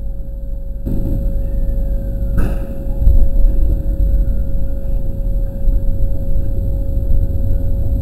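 Inside the cab of a 207 series electric train: a steady low rumble and a constant hum, with a brief knock about two and a half seconds in, as the train starts to pull away from the station.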